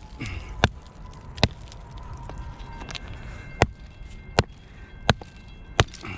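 Hammer striking a chisel into limestone, six sharp, irregularly spaced blows, chipping the rock away from a calcite crystal.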